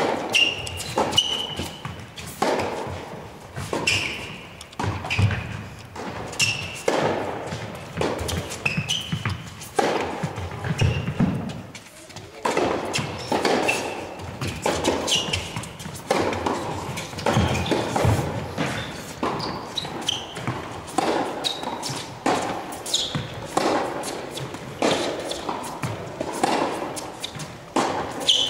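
Tennis rally on an indoor court: rackets striking the ball and the ball bouncing, over and over, with short shoe squeaks on the court between hits, all echoing in a large hall.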